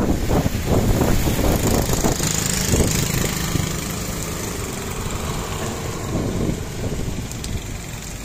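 Rain pouring onto a road and paving, with gusty wind rumbling on the microphone. A small engine from a passing motorcycle and auto-rickshaw on the wet road is heard over the first few seconds, then the rain and wind carry on a little quieter.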